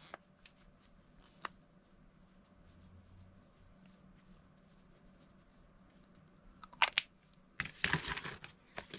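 Small plastic toy makeup pieces handled in gloved hands: a few faint clicks, then louder plastic clicks and a short clattering rustle near the end as pieces are set down and sorted on the table.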